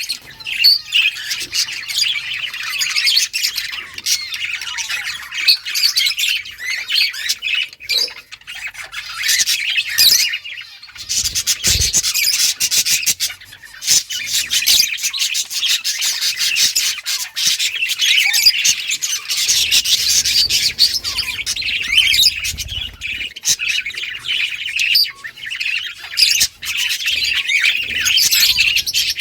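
A flock of budgerigars chirping and squawking continuously, many birds calling over one another in dense, overlapping chatter.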